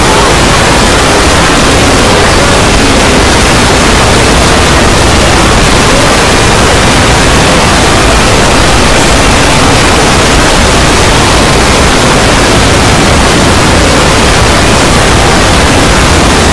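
Dozens of video soundtracks layered at once, blending into a loud, steady wall of harsh noise in which no single sound stands out.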